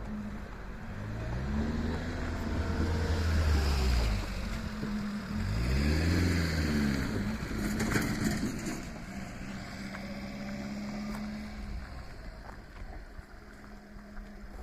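Vehicle engines passing at close range, each rising then falling in pitch, twice, with a sharp clatter about eight seconds in; a steadier engine tone then fades away.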